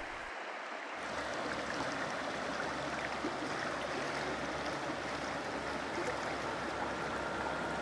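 Steady rush of a wide, shallow river flowing over rocks, starting about a second in.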